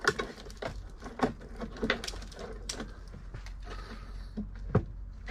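Hand tool and hands working at a Lotus Esprit headlight pod: irregular clicks and knocks on the pod's fittings, with sharp knocks just after the start and near the end.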